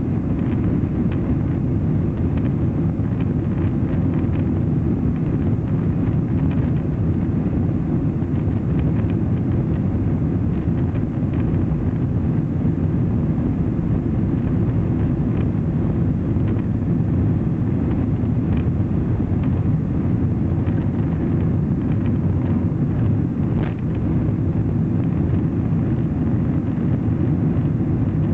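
Boeing 747 jet engines at take-off thrust, heard inside the passenger cabin as a loud, steady, deep rumble with a hiss of air noise above it.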